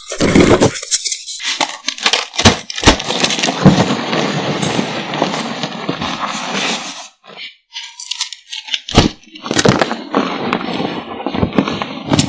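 Reformed gym chalk being crushed: a few sharp cracks, then a dense crumbling crunch for several seconds, then more separate cracks near the end.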